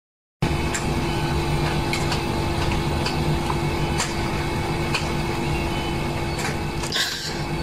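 Steady machine hum with a few fixed tones, with scattered faint clicks and a short rustle near the end.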